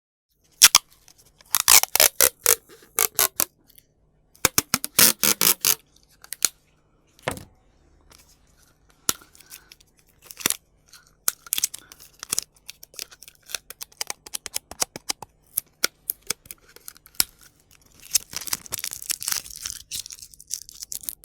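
Scotch tape pulled off its roll with a sticky crackle, in three longer pulls with scattered clicks and short crackles between.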